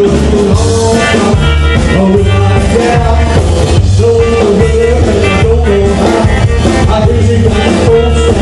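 Live rockabilly band playing: a strummed acoustic guitar over a steady, evenly pulsing bass beat.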